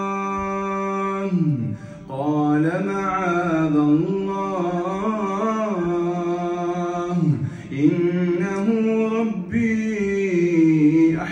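A man's voice chanting Quran recitation in the melodic, drawn-out tajweed style. It opens on a long held note that falls away, then moves through ornamented, winding melodic phrases, broken by short pauses for breath.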